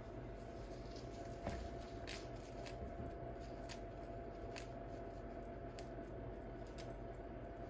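Fresh basil leaves being torn by hand: soft crisp rustling with scattered small snaps and clicks, the sharpest about one and a half seconds in, over a faint steady hum.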